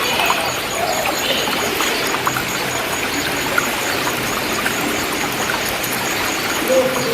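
River water flowing and rushing over rocks as a steady hiss.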